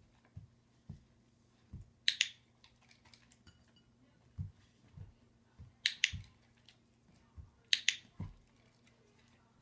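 A dog-training clicker clicked three times, each a sharp double click, about two, six and eight seconds in. Between the clicks, a dog's paws make soft low thumps as it steps on and off rubber balance pods.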